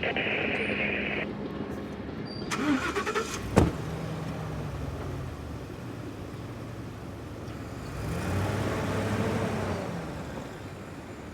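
Caterpillar D6K2 XL dozer's diesel engine running, rising and then falling in pitch about eight seconds in, with a short burst of radio hiss at the start and a sharp click around the middle.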